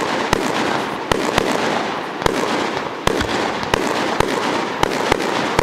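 Fireworks going off: a continuous crackle broken by sharp bangs at irregular intervals, about two or three a second.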